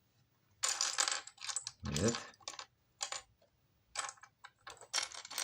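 Loose plastic Lego pieces clicking and clattering in irregular clusters as hands sort through them and fit them together.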